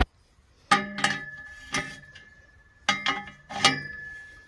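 Sharp metal-on-metal clinks, about six of them in two groups, each ringing briefly and one ringing on for about a second: a metal tool working on the tractor's exhaust fitting as it is tightened. The engine is not running.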